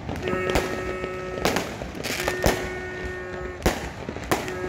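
Fireworks going off in scattered sharp bangs, about one every second. Between them a horn is blown three times in long steady notes, each about a second or more, the last starting near the end.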